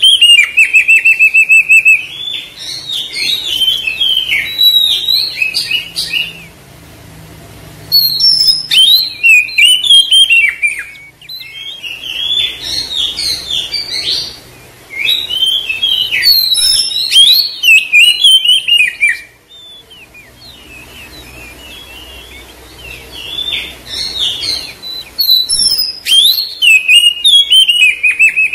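Oriental magpie-robin (kacer) singing loud, varied whistled phrases with fast trills of repeated notes, broken by two short quieter pauses.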